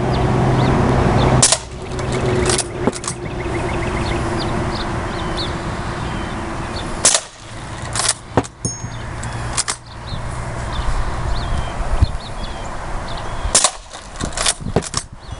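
Lever-action CO2 BB rifle firing a string of sharp pops, with the lever clacking as it is worked between shots to eject the shells and chamber the next BB. The pops come in small clusters a few seconds apart.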